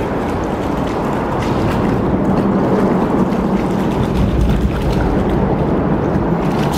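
Steady rushing noise of a shallow river flowing over stones, with a low rumble of wind on the microphone.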